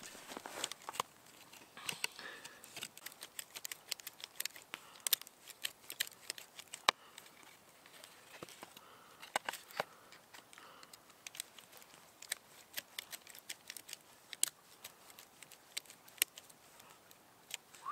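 Small saw blade of a multi-tool scraping and cutting into dense wood in short, careful strokes, with irregular sharp clicks and scratches.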